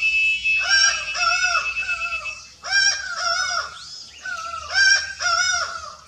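Laughing falcon calling: a rhythmic series of hollow, pitched two-note calls repeated about once a second, with a brief lull about four seconds in.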